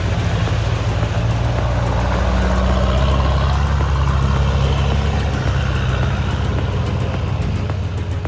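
Off-road 4x4 vehicle's engine running steadily at low revs, with a steady rushing noise over it.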